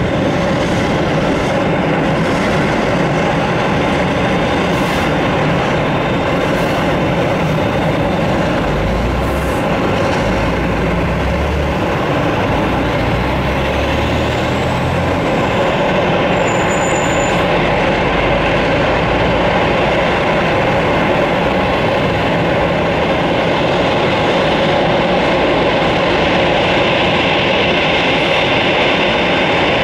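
Boeing 747-8 freighter's four GEnx turbofan engines running at taxi power, a loud steady jet whine and rush, growing slightly louder toward the end as the aircraft approaches, with some low rumbling midway.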